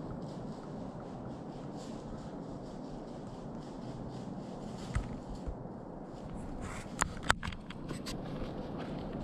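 Steady woodland background hiss, broken by handling noise: a sharp click about five seconds in, then a louder pair of clicks with rubbing and scraping around seven seconds in.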